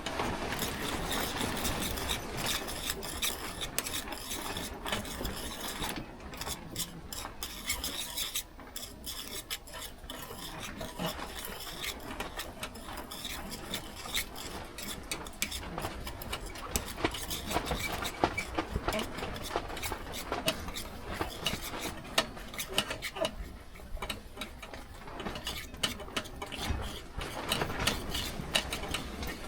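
Continuous scraping and stirring of a utensil in a small metal dalgona ladle, with many light clicks and taps against the metal.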